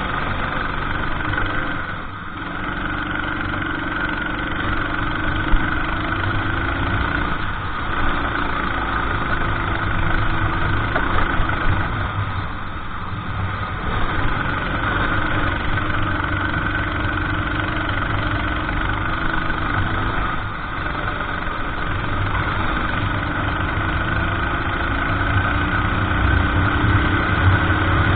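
Kart engine under race load. Its pitch climbs steadily as it accelerates, then drops sharply when the driver lifts off for a corner, about every six seconds.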